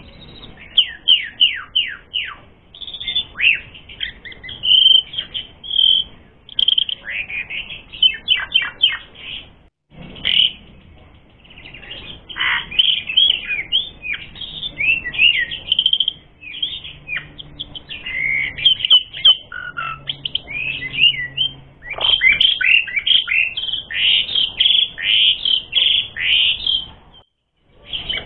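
Asian pied starling (jalak suren) singing a fast, varied song of high whistles and downward-sweeping notes, with two short breaks, about ten seconds in and near the end.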